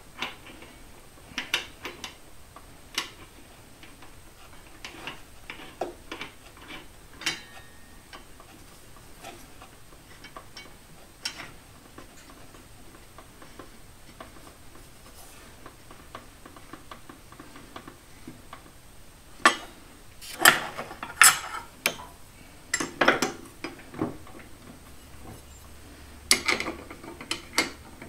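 Metal clicks and clinks of steel dado blades and a wrench as a 3/8-inch dado stack is fitted onto a table saw arbor and the arbor nut tightened. The clicks come scattered at first, then a busier run of louder clinks about twenty seconds in and again near the end.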